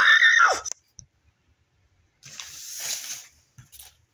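A person's voice giving a high squealing cry that rises and falls in pitch, cut off within the first second. A moment later a rushing hiss swells and fades over about a second.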